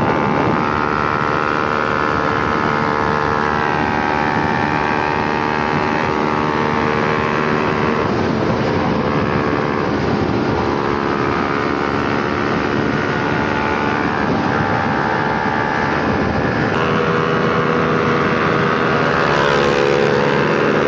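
Several single-cylinder sport motorcycles run hard at high speed side by side: a Yamaha R15 V3 in fifth gear alongside a KTM RC 200 and a TVS Apache RR 310, both with really loud Akrapovic aftermarket exhausts. Steady engine drone whose pitch shifts a few times as the throttles change, over wind rush.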